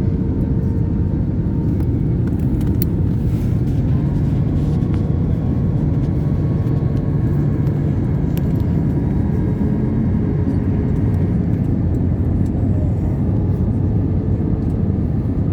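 Airbus A320 on final approach: a steady, loud low rumble of engines and airflow with a faint steady tone over it, as heard inside the airliner.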